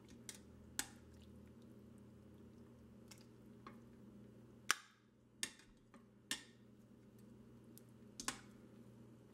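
Metal kitchen tongs tapping and clinking lightly against the stainless steel inner pot of an Instant Pot while lifting out chicken breasts: about eight faint, irregular ticks, the loudest about five seconds in.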